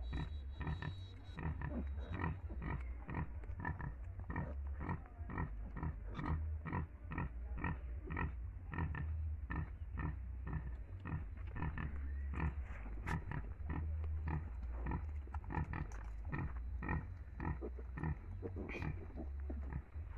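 A nursing sow grunting in a steady rhythm, about three short grunts a second, while her piglets suckle.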